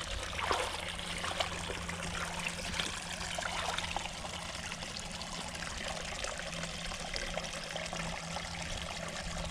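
Water trickling steadily, with small scattered ticks.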